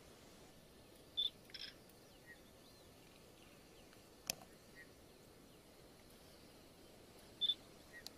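Faint, steady outdoor hiss with a few short, high chirps about a second in and again near the end, and a single sharp click about four seconds in.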